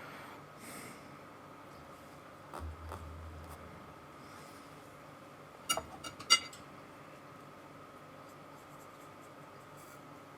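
Faint scratching of a paintbrush working acrylic paint onto canvas, broken about six seconds in by a few sharp knocks, the loudest sounds here.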